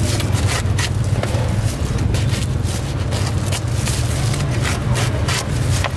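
Steady low traffic rumble, with irregular crackling and scraping as a crusty baguette is handled and cut by hands in plastic gloves.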